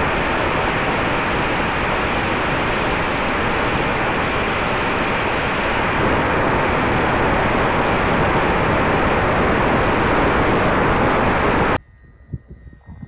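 Loud, steady rushing hiss of wind over the onboard camera of a small electric FPV box-wing airplane in flight, with the faint steady hum of its electric motor and propeller. Near the end it cuts off suddenly to a much quieter sound: the plane's faint propeller buzz heard from the ground.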